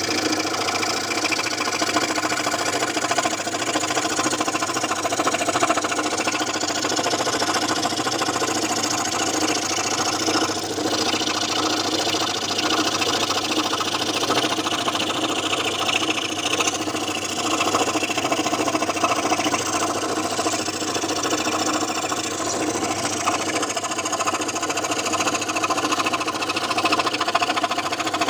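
Electric scroll saw running steadily, its blade reciprocating in a fast, even rhythm.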